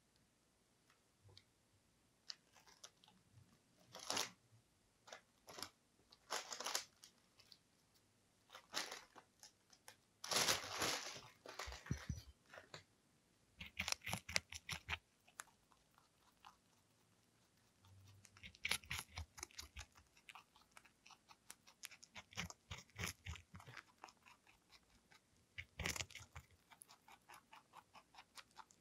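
A lionhead–Dutch mix rabbit biting and chewing a whole cucumber: crisp, wet crunches in irregular bouts with short quiet pauses between.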